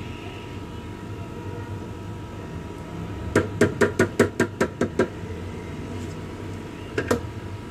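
A small spice container is tapped against the rim of a pressure cooker to knock out turmeric powder. There is a quick run of about eight sharp taps, roughly five a second, then two more near the end, over a steady low hum.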